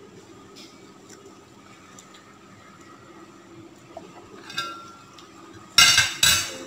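Eating by hand from a plate: faint small clicks, then two loud clinks of crockery about half a second apart near the end.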